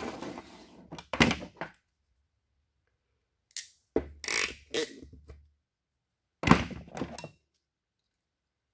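Hand tools clicking and knocking on a workbench in three short bursts of handling, as a wire is stripped and a crimping tool is picked up to crimp a terminal.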